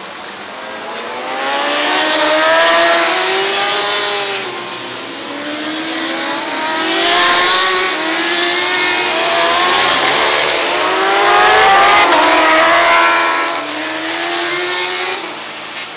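Superstock race motorcycles going past on the circuit, their engines revving up through the gears, the pitch climbing and dropping back at each shift. Several bikes overlap, swelling louder a few times and easing off near the end.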